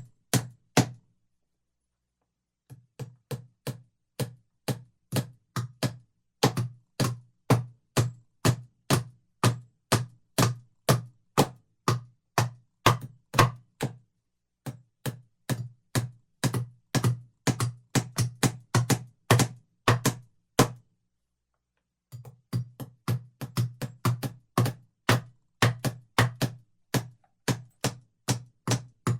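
Two carpenters hammering on wood, steady rhythmic blows about two to three a second, each with a low thud. The hammering stops briefly three times: about a second in, about halfway, and about two-thirds of the way through.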